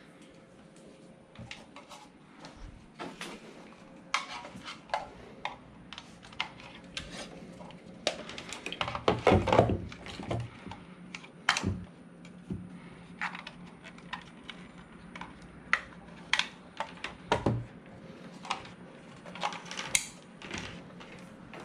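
Irregular clicks, taps and knocks of small hard objects being handled, with a louder, longer clatter about nine seconds in.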